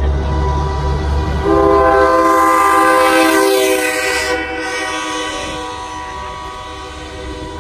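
Semi truck's air horn sounding one long chord as the tractor-trailer passes close by, loud for about three seconds and then fading as it moves away. A low engine rumble comes before the horn.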